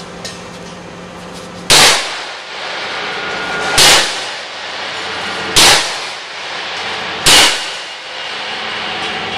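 Four full-swing sledgehammer blows clanging against a Lucas Equine crosshatch mesh stall door of 5/16-inch solid cold-drawn steel bars, welded at every joint. The blows come about two seconds apart, each ringing out briefly. It is a strength test, and the welded mesh holds without breaking apart.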